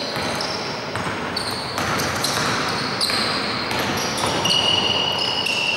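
Basketball being played on an indoor hardwood court: many short, high sneaker squeaks as players run and cut, over the ball bouncing and the general shuffle of play.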